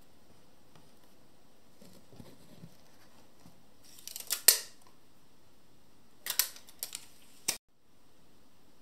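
Steel tape measure handled over a bamboo-slat tray: sharp metallic clicks and rattles in two clusters, one about four seconds in and another from about six seconds in, the second ending in a single sharp snap.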